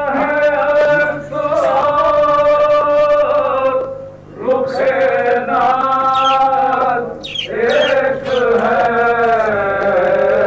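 Devotional chanting: a voice sings long, held, slowly wavering phrases, breaking off briefly about four seconds in and again about seven and a half seconds in.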